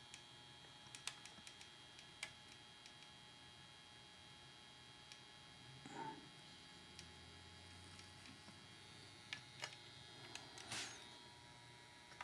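Near silence: a faint steady electrical hum, with scattered light clicks and two brief soft rustles about halfway and near the end as small tools and wires are handled on the workbench.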